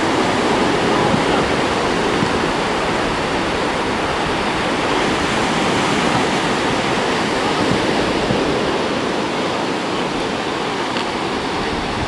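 Steady rush of sea water and breaking surf, an even hiss of noise with no distinct events.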